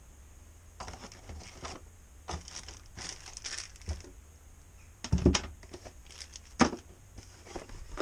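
Cardboard box and packaging rustling and crinkling as a hydraulic disc brake and its hose are packed back into the box, with two sharp knocks about five and six and a half seconds in.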